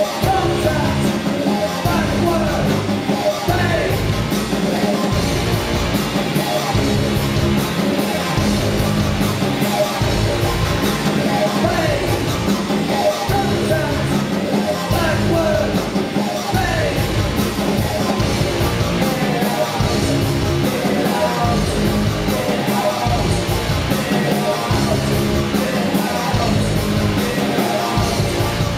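A live band playing loud, driving industrial rock with a pulsing bass beat and sung, yelled vocals, picked up by a compact camera's built-in microphone.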